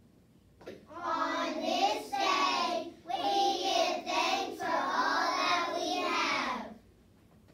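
Children singing a short song in four held phrases with brief breaks, starting about a second in and stopping shortly before the end.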